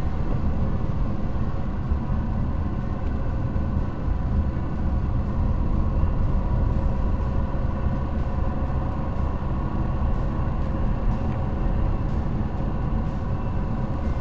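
Car driving along a dirt road, heard from inside the cabin through a dash cam: a steady low engine hum and tyre rumble.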